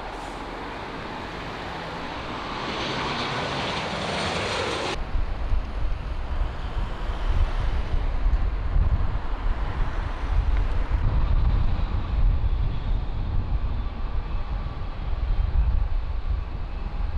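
Airliner engine noise growing louder over the first few seconds. About five seconds in it gives way abruptly to a deep, uneven rumble that lasts to the end.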